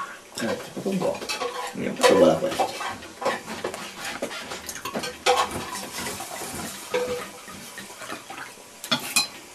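Glasses, bottles and plates clinking and knocking with scattered, irregular clicks, as wine is poured from a large bottle into a glass.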